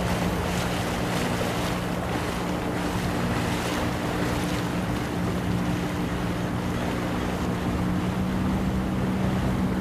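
Motorboat engine running at a steady cruising speed, a constant hum, with water rushing past the hull and wind buffeting the microphone.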